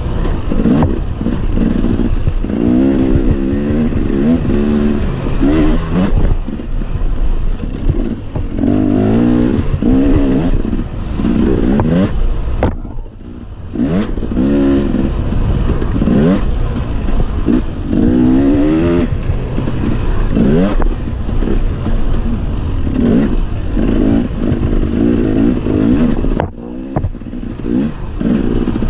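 Dirt bike engine ridden hard, its pitch climbing and falling again and again as the throttle is opened and closed, with a steady hiss over it. The throttle is shut briefly twice, about 13 seconds in and again near the end.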